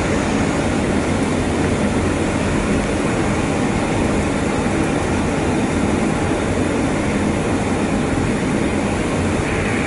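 Steady rushing airflow and engine noise inside a Boeing 737-800 cockpit on final approach.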